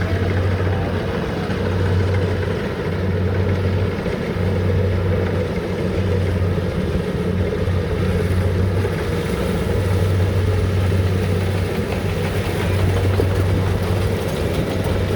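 Combine harvester's engine running steadily, a low hum that swells and dips every second or so.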